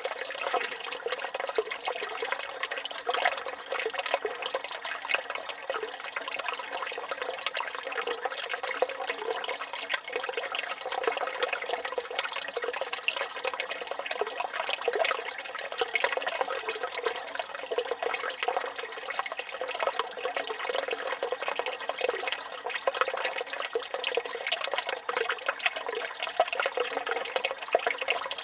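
Water pouring steadily from a village fountain's spout and splashing, a constant unbroken rush.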